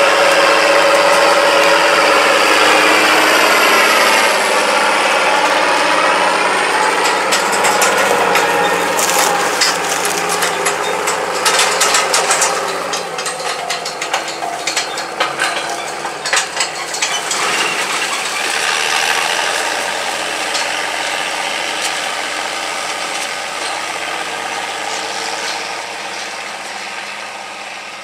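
International 3588 2+2 tractor's six-cylinder turbo diesel running under load as it drives past, its pitch bending down as it goes by. Then comes a dense clicking and rattling from the Kinze planter's row units and drives as the planter passes. The sound fades steadily as the rig moves away.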